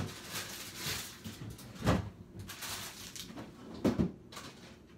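Kitchen handling noises: three thuds about two seconds apart, the first right at the start, with rustling and light clatter between them, as food and cookware are moved about for cooking.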